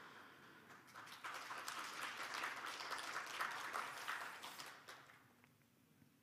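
Audience applauding, swelling about a second in and dying away before the end.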